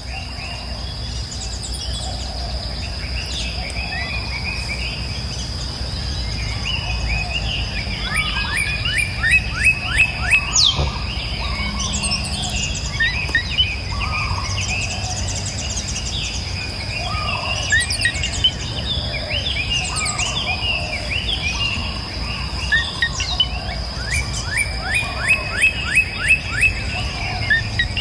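Several wild birds chirping and singing in a forest, with two runs of rapid repeated down-slurred notes, one about eight seconds in and one near the end. Under them runs a steady high-pitched whine and a low background rumble.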